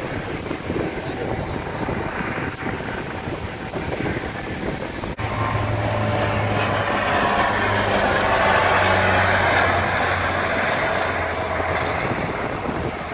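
Low-flying twin-engine turboprop plane and helicopter passing over the beach: a steady engine drone with a whine, growing loudest about seven to ten seconds in, under wind on the microphone.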